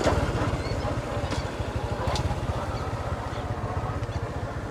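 A motor vehicle's engine running steadily with a rapid low pulsing, with a few short clicks or knocks over it.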